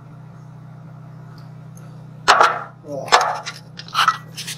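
Knocks and clatter of steel pieces being handled and set down, starting about two seconds in, over a steady low hum.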